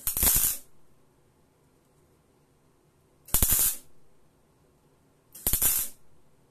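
MIG welding arc crackling in three short bursts of about half a second each, the second about three seconds after the first and the third two seconds later.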